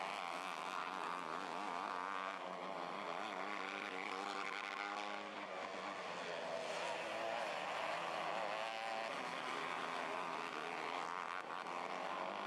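Several 250cc micro sprint car engines running on a dirt oval, their pitch rising and falling as the cars accelerate and lift around the turns.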